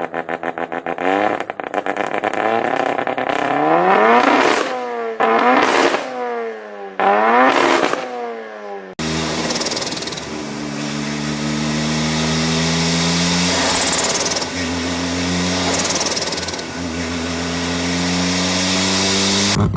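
Mazda RX-7 rotary engine exhaust: a choppy, pulsing idle, then several quick revs that rise and fall. About nine seconds in the sound cuts to a steadier, higher-rpm note that slowly climbs, dips and climbs again, and near the end a pulsing idle returns.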